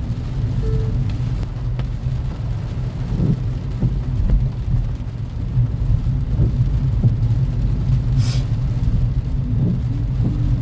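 Steady low road and engine rumble inside a moving car's cabin on a wet road, with a brief hiss about eight seconds in.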